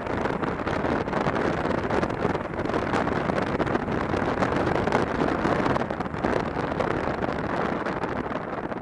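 Wind rushing over the microphone of a motorcycle being ridden at road speed, with the bike's engine and tyre noise underneath as a steady rumble.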